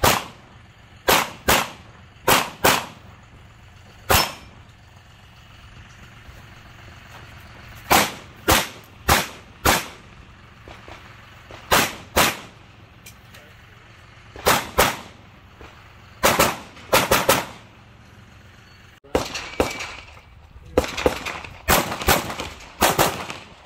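Pistol shots from a 2011-pattern competition pistol fired mostly in quick pairs (double taps), with pauses of a second to a few seconds between pairs. Near the end a faster run of shots comes in close succession.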